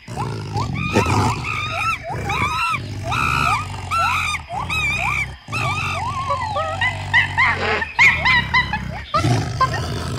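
Short animal calls, each rising and falling in pitch, repeated two or three times a second, over a steady low engine hum.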